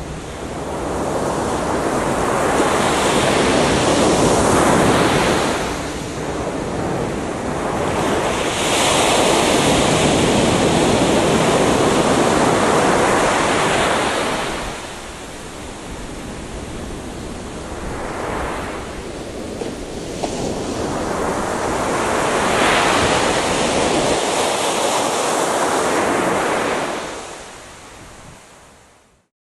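Surf breaking and washing up a beach. The noise rises and falls in long swells a few seconds apart, then fades out near the end.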